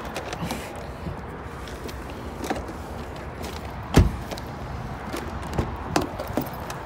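Car door shutting with one loud thump about four seconds in, with a few lighter clicks and knocks around it over steady outdoor background noise.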